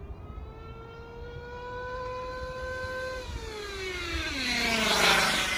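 Nitro engine of a 1:8 Kyosho Inferno GT on-road RC car running at high revs on a top-speed run: the pitch climbs steadily, then drops sharply as the car passes close by, loudest about five seconds in.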